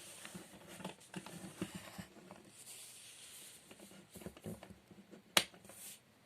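Light handling noise of a plastic toy alarm clock: soft rustling and small scattered taps, with one sharp click about five seconds in.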